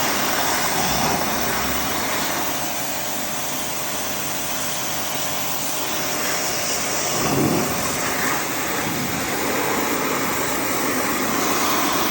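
Electric pressure washer running steadily while its water jet sprays the window air conditioner, washing dirt out of the coils.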